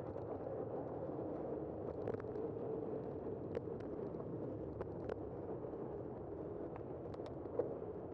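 Bicycle rolling along a paved street: a steady rush of tyre and wind noise, with a dozen or so scattered light clicks and rattles from the bike.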